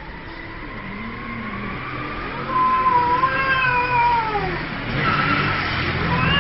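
A cat yowling: a long drawn-out call that rises slightly and then falls away, starting a couple of seconds in, with a second call beginning near the end.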